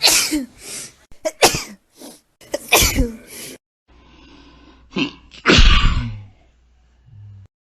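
A run of human sneezes spliced one after another: about four short, sharp sneezes with brief gaps, the loudest about two-thirds of the way through.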